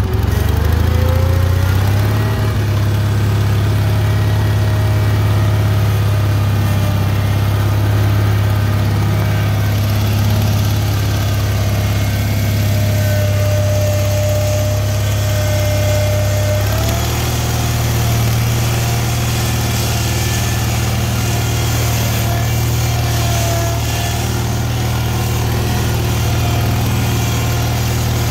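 Cub Cadet 782 garden tractor's engine revs up over the first two seconds as the throttle is opened. It then runs steadily at speed as the tractor drives, stepping up slightly in engine speed about 17 seconds in.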